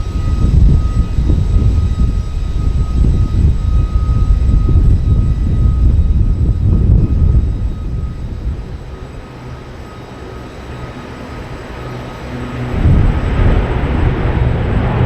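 Military aircraft engines running, a loud deep rumble with a steady whine over it; it fades about eight seconds in and swells again near the end.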